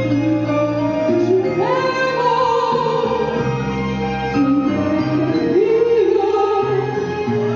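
A woman singing into a handheld microphone over instrumental accompaniment, holding long notes with vibrato.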